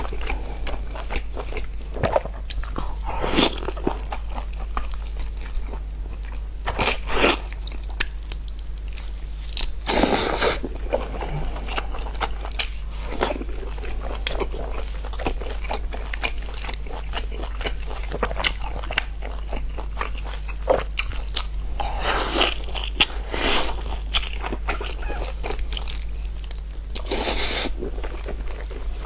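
Close-miked eating: a person biting and chewing food, with crunchy bites every few seconds over a steady low hum.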